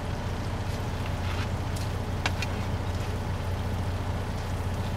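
Chorizo sizzling in a frying pan, with a few sharp crackles about two seconds in, over a steady low drone inside a semi truck's cab.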